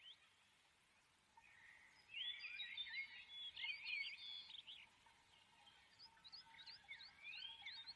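Faint bird chirping and trilling: quick high chirps that come in two busier spells, one about two seconds in and another near the end.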